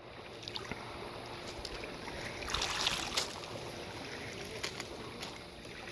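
Small Black Sea waves lapping at the shore, with one wave washing in more strongly a little under three seconds in.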